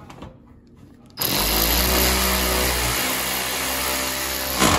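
Quarter-inch cordless electric ratchet running for about three and a half seconds, starting about a second in, as it drives in the bolt that clamps the new blade engagement cable to its bracket. It runs as one steady whine, then cuts off.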